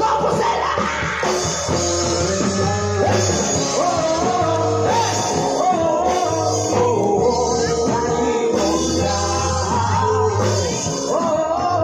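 A live rock band playing: a male singer singing over amplified electric guitars, bass and keyboard, the bass holding long low notes under the vocal line.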